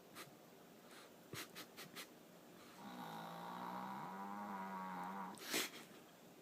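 A sleeping dog snoring with an odd pitched snore. A few quick soft clicks come first, then one long drawn-out snore with a steady hum that steps up in pitch partway through, then a short loud burst of breath near the end.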